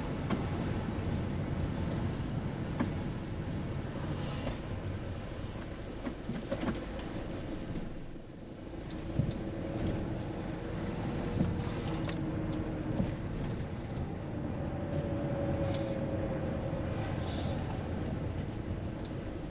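Steady traffic and vehicle rumble, briefly quieter about eight seconds in, with a few light clicks.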